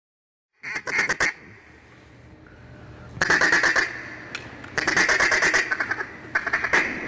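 Mallard quacking and fast chatter in four bursts, the first just over half a second in and the others at about three, five and six and a half seconds, over a faint steady hiss.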